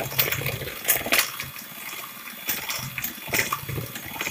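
Electric hand mixer beating buttercream with a little milk just added: a steady whirr with the wet churning of the mix and irregular knocks of the beaters against the bowl.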